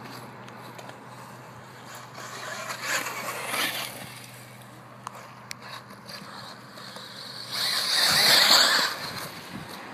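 A vehicle goes by twice, its noise swelling and fading each time, once about three seconds in and again, louder, near the end. A few sharp clicks come in between.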